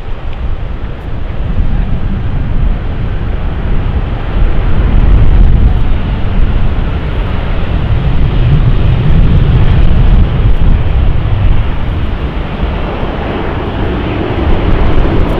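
Airbus A320 jet engines running as the airliner rolls along the runway, mixed with heavy wind rumble on the microphone. The sound grows louder over the first couple of seconds, and the engine noise strengthens near the end.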